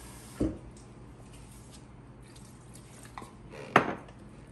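Kitchenware being handled around a pot while the electric hand mixer is switched off: a dull thump about half a second in, a few light taps, then a sharp clink near the end, the loudest sound.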